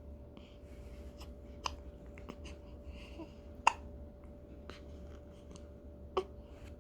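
Newborn baby hiccupping: three short, sharp hics, the loudest about halfway through, with faint small clicks between them over a steady low hum.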